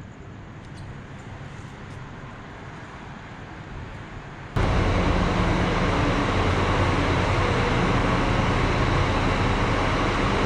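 Faint, even background noise, then from about four and a half seconds in a much louder, steady hum of a bus engine running.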